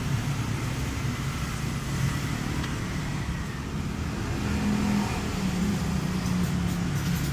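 A vehicle engine runs steadily at low speed, its pitch creeping up slightly about halfway through.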